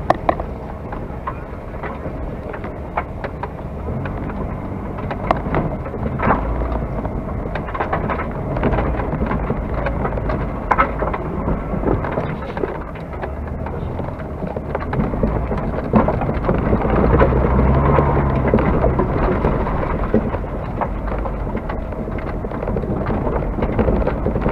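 Race car driven hard across a dirt course, heard from inside the cabin: a constant engine and road rumble under load, with gravel and dirt ticking and pinging against the body, heaviest about two-thirds of the way through.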